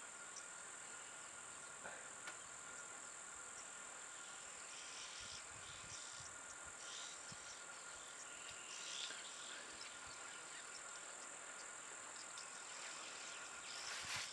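Faint steady high-pitched insect drone, with a few faint short chirps in the middle.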